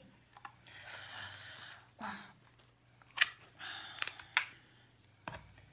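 Shell of a huge oyster scraping and clicking as it is handled and pried open by hand: a few short rough scrapes and several sharp clicks.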